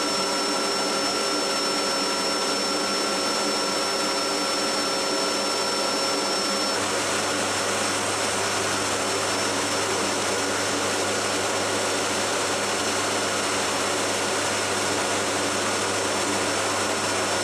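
Steady rush and whine of a KC-130J's turboprop engines running on the ground with the cargo ramp open. About seven seconds in the high whine drops away and a low hum sets in.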